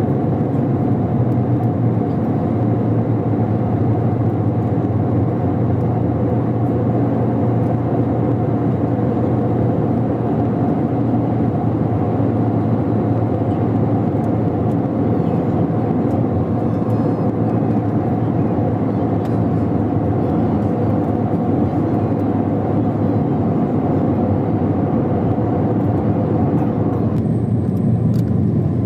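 Airplane engines and airflow in a steady drone, with a constant low hum and a few steady tones under it; the higher part of the noise eases slightly near the end.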